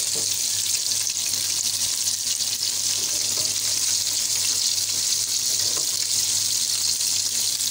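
Flour-coated chicken wings deep-frying in oil in a steel pan over a low flame: a steady, dense sizzle with fine crackling.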